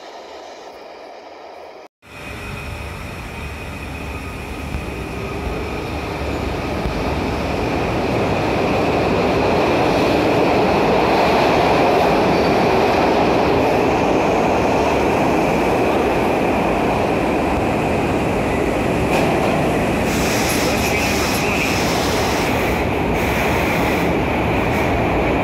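SEPTA Broad Street Line express subway train approaching and running into the station, its rumble growing louder over the first several seconds and then holding steady as the cars pass the platform, with a steady high wheel squeal throughout.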